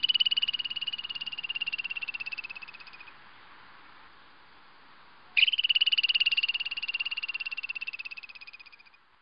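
A frog calling: two long, high trills of rapid pulses, each about three and a half seconds, the first from the start and the second starting about five seconds in, each fading as it ends.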